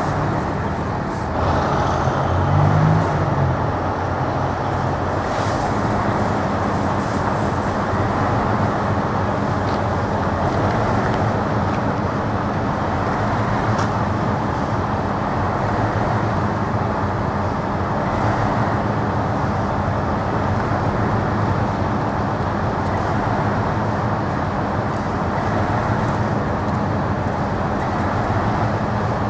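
Diesel locomotive engine running steadily at low power during a slow shunting move, with the rumble of the coaches and tank car rolling over the crossing.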